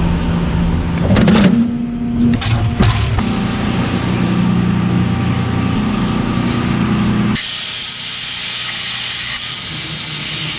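Steady machine running noise with a low hum, broken by a few knocks in the first three seconds; about seven seconds in the hum drops away, leaving a steady hiss.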